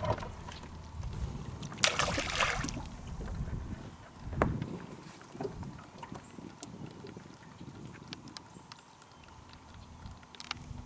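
Wind buffeting the microphone over low water and boat noise aboard a small open boat. A short splash comes about two seconds in, and a sharp knock a little after four seconds.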